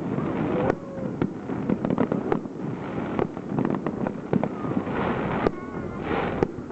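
Aerial fireworks shells bursting in a display, many sharp bangs and crackles in quick succession.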